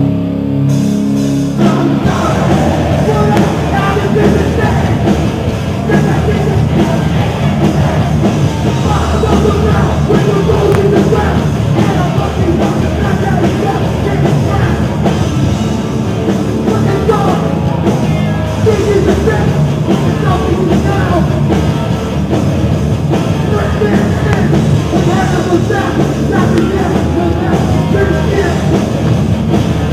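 Hardcore punk band playing live and loud: distorted guitars, bass and drums under shouted vocals. A held chord rings at first, and the full band comes crashing in about a second and a half in.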